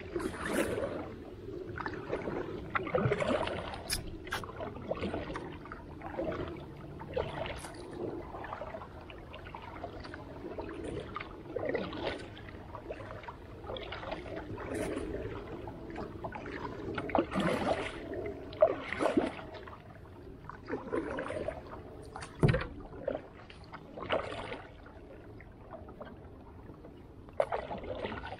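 Creek water splashing and sloshing, in irregular bursts every second or two over a steady wash of moving water.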